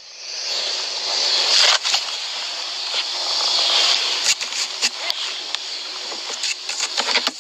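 Rustling, scraping and scattered knocks of an officer searching through a car, over a steady hiss that swells and fades.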